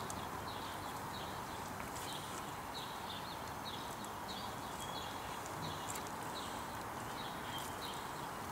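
A bird chirping over and over, short high notes about twice a second, against a steady outdoor background hum.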